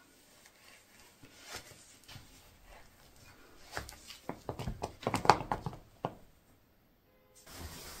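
Soft rustling and sharp little knocks and taps of sneakers being pulled on and their laces pulled tight, busiest and loudest a few seconds in, then briefly hushed.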